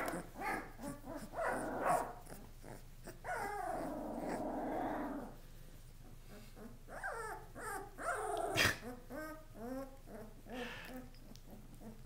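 Two-week-old Karakachan puppies growling, whimpering and yipping in play. There is a longer growl of about two seconds starting about three seconds in, and a quick run of short yips and whines from about seven to ten seconds.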